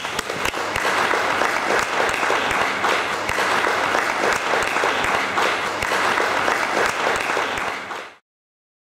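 Audience applauding, a dense steady clatter of many hands clapping that cuts off abruptly about eight seconds in.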